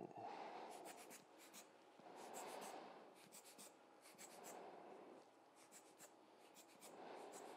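Faint soft puffs of air, about four, a second or so each, from a hand-squeezed rubber bulb air blower pushing wet alcohol ink across the paper, with light ticks between them.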